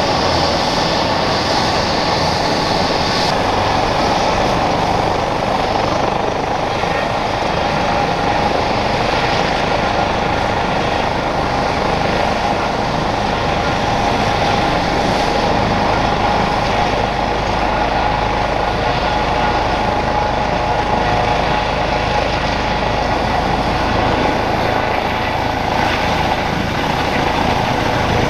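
Airbus EC135 police helicopter's twin turboshaft engines and main rotor running on the ground, a steady whine over the rotor's rumble; a lower tone joins near the end.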